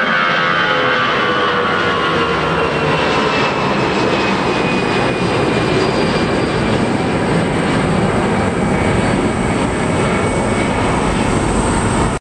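Jet roar of an Airbus A320-211's twin CFM56 turbofans at climb power as the airliner climbs away after takeoff: a steady roar with whining tones that slowly fall in pitch as it moves off.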